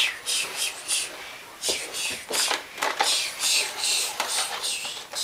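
Steam-train chuffing for a Thomas the Tank Engine toy: a run of short hissing puffs, several a second, as the toy engine is pushed along.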